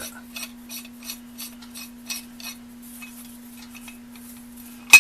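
Light metallic clicks and scrapes of a drilled piece of steel being tried onto the ball end of a C-clamp screw, then one sharp metal clank just before the end. A steady low hum runs underneath.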